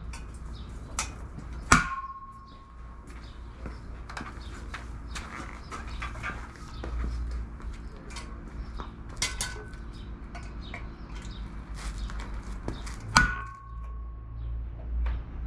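Metal tools and parts clinking and knocking, with two sharp metallic clanks that ring briefly, one about two seconds in and one near the end, over a steady low hum.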